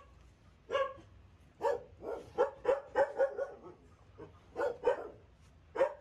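A dog barking: about ten short, fairly high barks, with a quick run of them in the middle.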